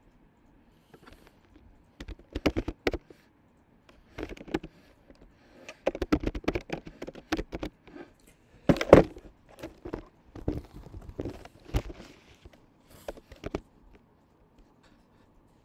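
Computer keyboard typing: bursts of rapid keystrokes with short pauses between, the busiest stretch in the middle.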